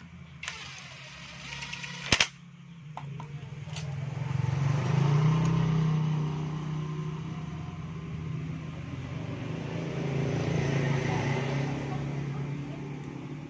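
A motor running with a steady low hum that grows louder a few seconds in, and a single sharp click about two seconds in.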